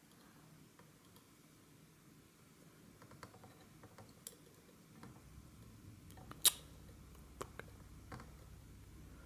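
Faint, scattered small clicks and taps of hand tools such as tweezers and a soldering iron on a circuit board while a small surface-mount diode is soldered, with one sharper click about six and a half seconds in. A faint low hum comes in about five seconds in.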